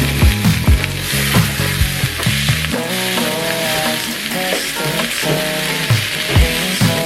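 Food sizzling as it fries, a steady hiss, under background music with a bass line and beat.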